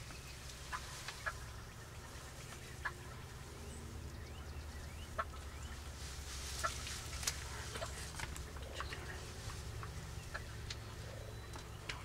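Wild turkey gobblers calling: scattered short clucks and gobbling, over a low steady rumble.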